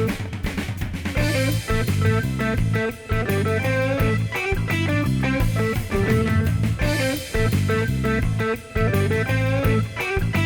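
Background rock music: electric guitar over a drum kit, with a steady beat.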